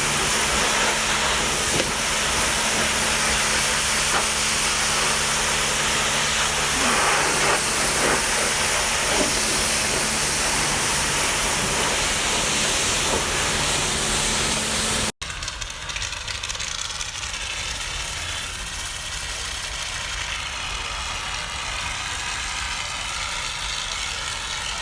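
Loud steady hiss of car-cleaning spray equipment with a low motor hum under it, cut off abruptly about fifteen seconds in; a quieter steady hiss follows.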